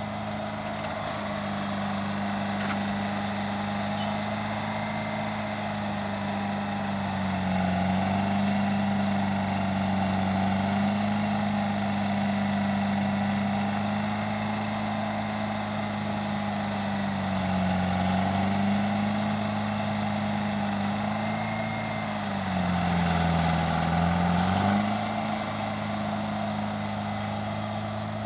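Dragline's engine running steadily, its note sagging and growing louder a few times as it takes load working the bucket, most deeply about 23 seconds in.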